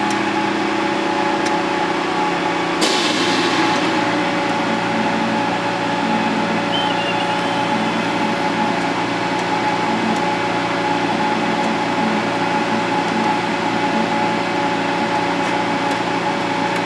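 Steady hum and whir of fans and electronics in a radio repeater equipment cabinet, holding several steady tones, with a brief clatter about three seconds in.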